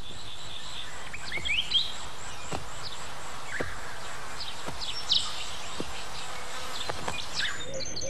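Outdoor nature ambience: a steady insect drone with short bird chirps scattered through it.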